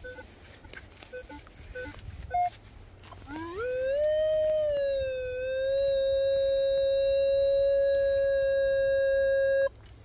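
Metal detector signalling a strong target: a few short beeps, then a tone that rises in pitch about three seconds in and holds steady for about six seconds before cutting off suddenly.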